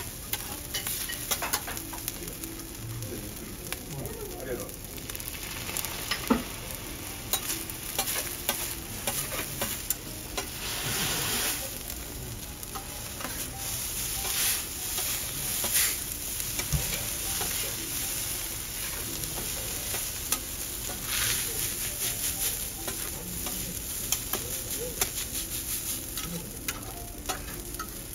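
Garlic fried rice sizzling on a steel teppanyaki griddle while a spatula and a two-pronged fork chop, scrape and turn it, with frequent metal clicks and scrapes against the plate.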